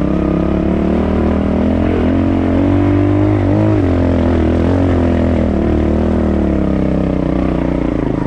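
Honda 4RT trials bike's four-stroke single-cylinder engine running at low, part throttle while ridden slowly over rough ground. Its pitch wavers with small throttle changes and dips briefly about three and a half seconds in.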